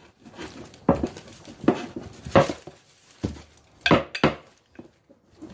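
A rolling pin knocking and rolling over a block of butter in a plastic freezer bag on a pastry board, with bag rustle: butter being beaten flat into a thin square sheet for laminated croissant dough. About half a dozen irregular knocks, the loudest around the middle.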